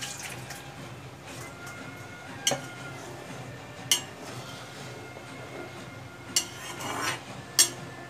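Slotted metal spatula stirring a thick chicken and potato curry in a black iron kadai. It scrapes through the curry and clinks sharply against the pan's rim four times, the last clink near the end the loudest.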